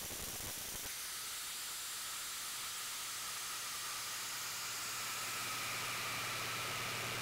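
Compressed air hissing steadily out of an opened tap on the 1942 Leroi compressor's air tank, with a faint whistle that slowly falls in pitch.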